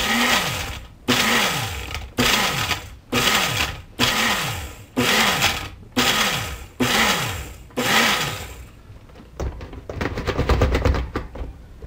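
Countertop blender pulsed about nine times, once a second, grinding María cookies to crumbs: each pulse starts sharply and the motor whine falls away as it coasts down, with cookie pieces bouncing in the glass jar. Near the end the pulsing stops and the jar is rocked on its base, giving a quick run of rattling clicks.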